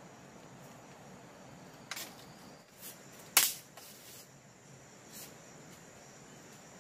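Split bamboo strips clacking and knocking against the bamboo wall frame as they are woven in: four sharp knocks, the loudest about three and a half seconds in. A faint, steady insect drone runs underneath.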